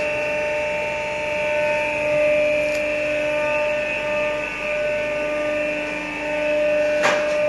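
Running workshop machinery giving a steady whine of several unchanging tones, with a single sharp click about seven seconds in.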